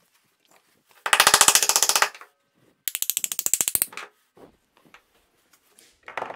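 Rapid metallic clattering at the bench vise: two runs of quick, evenly spaced clicks, each about a second long, with a few loose small knocks between them.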